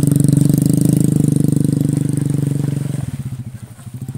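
An engine running steadily at constant speed with a fast even pulse, then dropping off sharply about three seconds in.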